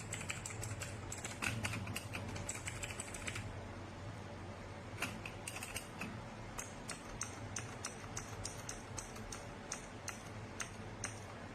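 Keys being typed on a Newmen GM610 mechanical keyboard: a fast run of key clicks for about three seconds, then slower, separate keystrokes.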